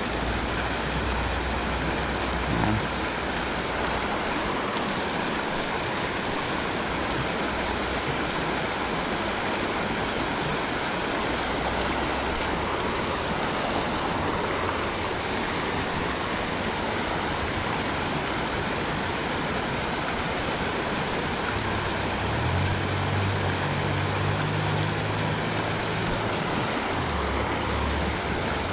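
Shallow rocky creek running, a steady wash of flowing water. A low hum joins about three-quarters of the way through.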